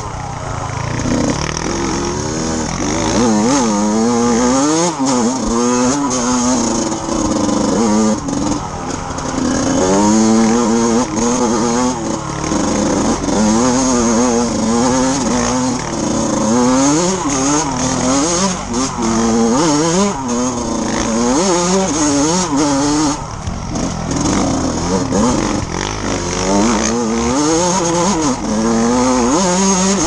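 Yamaha YZ125 two-stroke dirt bike engine running hard, its revs rising and dropping again and again with the throttle.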